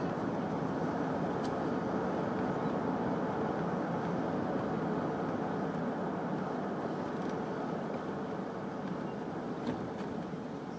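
Steady road noise heard from inside a moving car: tyre rumble on asphalt with wind and engine noise, easing slightly near the end.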